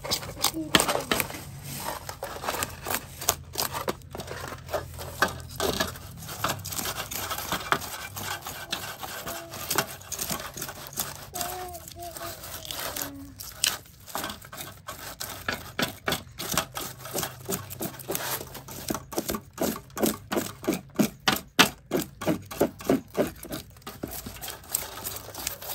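Knife scraping the scales off a salted, sun-dried fish: rapid rasping strokes, steadier and more regular in the second half at about three a second.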